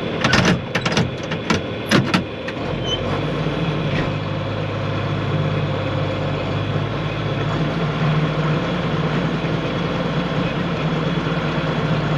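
A John Deere 4250 tractor's six-cylinder diesel engine running steadily under load as it pulls a loaded grain wagon. It comes up in level a few seconds in, after a handful of sharp clicks and knocks.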